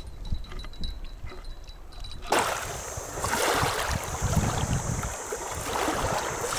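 A low rumble, then about two seconds in the steady rush of flowing river water cuts in abruptly and continues.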